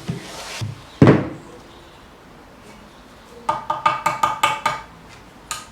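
Hand tools being handled against a wall: one sharp knock about a second in, then a quick run of about seven light, ringing metallic clinks near the end.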